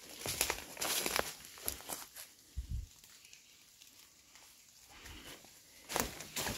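Footsteps crunching on rough ground as a person walks. The steps are busy in the first two seconds, then go quiet apart from a dull thud, and a couple of louder steps come near the end.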